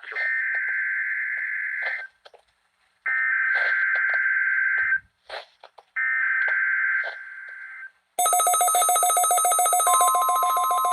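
NOAA Weather Radio Emergency Alert System test: three buzzy, screechy bursts of SAME digital header data, each about two seconds long. About eight seconds in, a loud, rapidly pulsing electronic alert alarm starts, and a steady single tone, the weather radio warning alarm tone, joins near the end.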